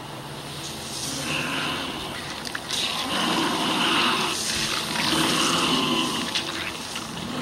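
A rushing, whooshing sound effect that swells and falls in waves, growing louder about three seconds in.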